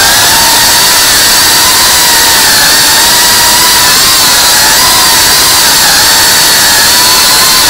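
FPV quadcopter's brushless motors and propellers running at speed, a loud steady high-pitched whine that wavers slightly in pitch with the throttle, heard close from the camera on the drone.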